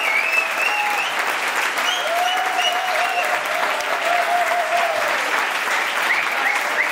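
Audience applauding steadily, with a few high voices calling out over the clapping.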